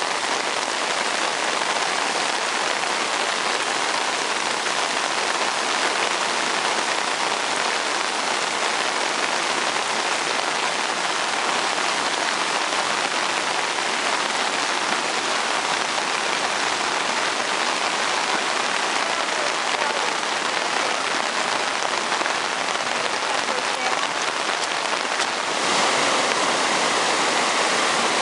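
Steady rain falling on trees and rocky ground, with no let-up. About 25 seconds in, the sound steps up slightly louder.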